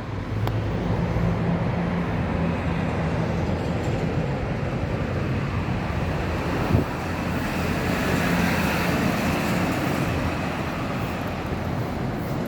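Steady rumble of passing road traffic, with a low engine hum from a heavy vehicle and a brief knock about seven seconds in.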